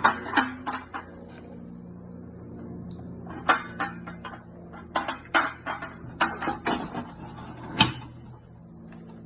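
Sharp clanks and knocks of a flood barrier board being handled and seated into the slotted posts, in several quick groups of hits, the loudest single knock near the end.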